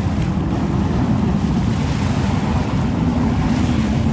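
Wind buffeting the microphone: a steady, loud low rumble, with a faint steady hum coming in about halfway through.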